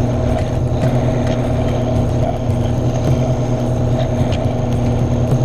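1980 Powermatic Model 95 scroll saw running steadily, its blade cutting curves in a thin piece of wood.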